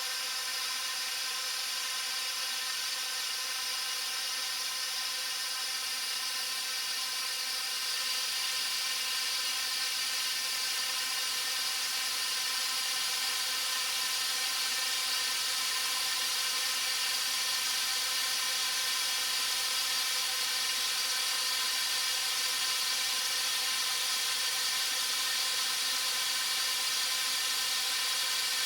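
Air flowing through a pipe: a steady hiss with a hollow ring of several held tones stacked together, unchanging throughout.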